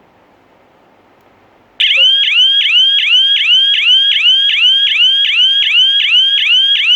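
GSM security alarm system's siren set off, sounding the alarm: a loud, rapid yelping siren, about three sweeps a second. It starts suddenly about two seconds in, after faint hiss.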